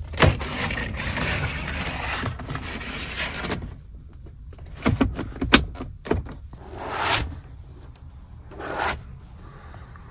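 Pleated window blinds in a van cab being slid open along their tracks: a long scraping rush for about three and a half seconds, a few sharp clicks a little before halfway, then two shorter swishes.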